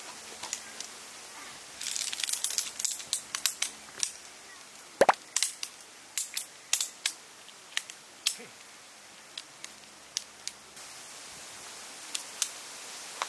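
Camp gear being handled and snapped together: irregular sharp clicks and snaps, with a quick run of them around two to four seconds in and the loudest single snap about five seconds in.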